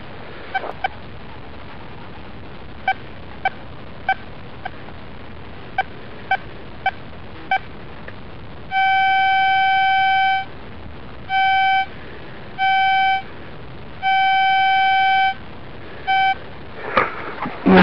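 Metal detector's audio signal: a scatter of short blips for the first seven seconds or so, then a steady beep repeated five times, each from a fraction of a second to about one and a half seconds long, as the coil is swept back and forth over a buried target, a coin.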